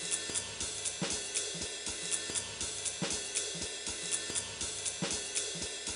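Background music with a drum kit keeping a steady beat: a stronger hit about once a second and quicker hi-hat ticks between.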